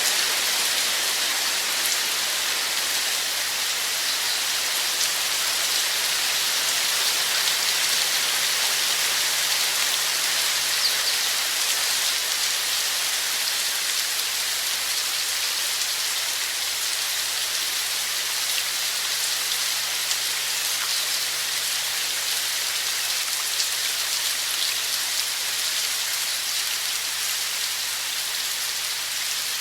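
Steady rain falling: an even hiss with scattered faint taps of drops.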